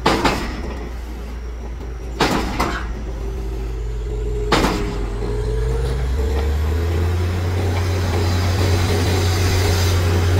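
Borewell drilling rig's diesel engine running steadily, with three short sharp bursts in the first five seconds. About six seconds in, the engine speeds up and runs a little louder.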